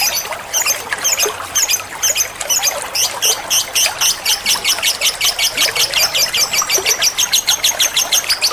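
Lovebird chattering: sharp, high chirps about twice a second, then from about three seconds in a fast, even trill of rapid high notes.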